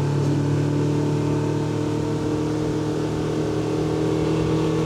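Boat outboard motor running steadily at an even speed.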